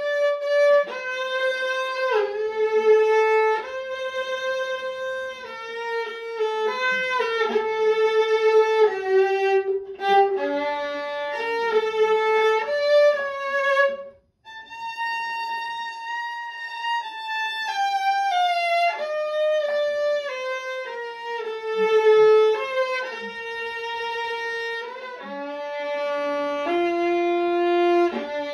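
Unaccompanied violin played with the bow, moving through a series of held and shifting notes, with a brief pause about halfway through.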